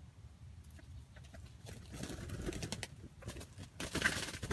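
Wild junglefowl moving about in dry leaf litter by a brush trap: rustling and scratching that grows busier about two seconds in, with soft low calls.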